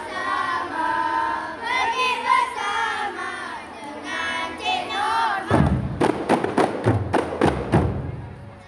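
Several voices chanting a verse together in unison, then a little over halfway the kompang frame drums come in together with a quick run of about ten sharp beats.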